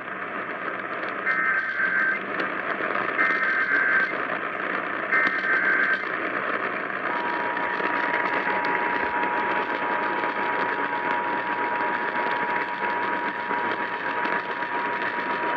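Emergency Alert System tones over AM radio hiss: three short bursts of the SAME digital header, then, about seven seconds in, the steady two-tone EAS attention signal that announces a warning being relayed to other stations.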